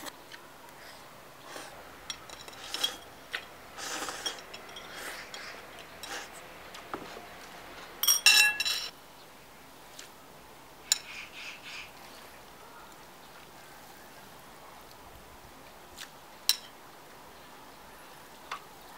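Metal chopsticks clinking against a stainless steel stockpot and a ceramic bowl while noodles are served. The loudest is a quick run of ringing metal clinks about eight seconds in, with single clinks scattered before and after.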